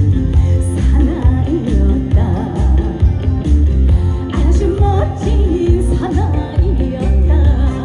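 Upbeat Korean trot song played live, with a heavy, pulsing bass beat under a wavering female vocal line.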